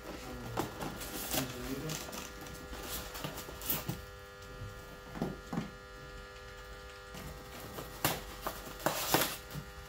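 Unpacking noises: rustling and scattered knocks as packed parts, a coiled plastic air hose among them, are lifted out of a cardboard box with a styrofoam insert and set down on a wooden bench, the loudest knocks near the end. A steady electrical hum underneath.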